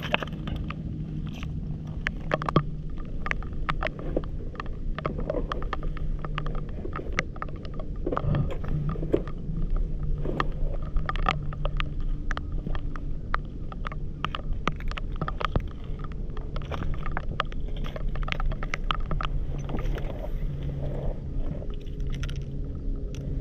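A steady low engine-like hum, with scattered sharp clicks and knocks of wet stones and shards shifted underfoot and by hand on a stony foreshore.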